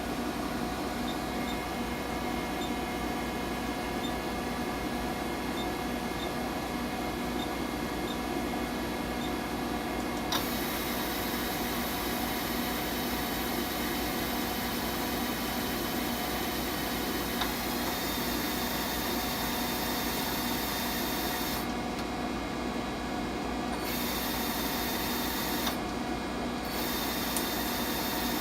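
CNC vertical machining center running: a steady machine hum with several steady tones over a hiss. A sharp click comes about ten seconds in, the hiss grows louder after it, and the hiss briefly cuts out twice near the end.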